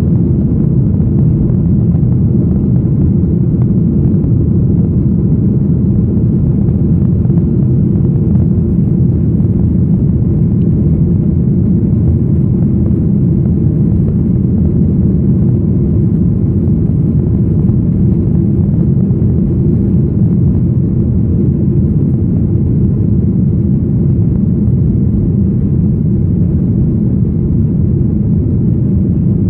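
Boeing 737-800's CFM56-7B turbofan engines at takeoff thrust, heard inside the cabin: a steady, loud, deep rumble through liftoff and the initial climb.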